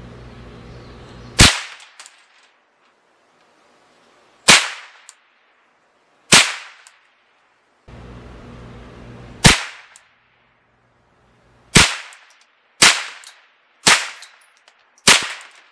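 Ruger 10/22 semi-automatic .22 LR rifle firing eight single shots, each a sharp crack that trails off briefly. The shots come a few seconds apart at first, then about one a second near the end.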